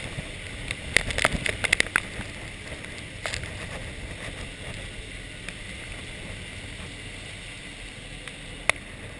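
Steady rush of wind and water from a sailing catamaran's wake in a squall. Sharp taps, clustered about one to two seconds in and once near the end, from rain and spray striking the camera.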